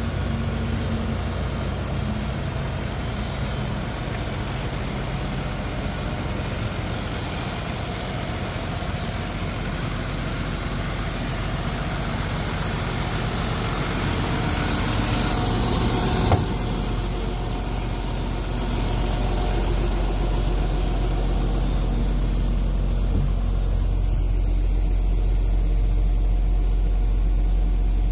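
Volvo FL box truck's diesel engine idling steadily. About sixteen seconds in there is a single sharp click, after which the engine sound is heard from inside the cab, duller and lower.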